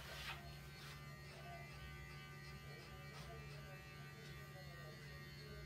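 Electric pet hair clippers running with a steady buzz, shaving a cat's coat.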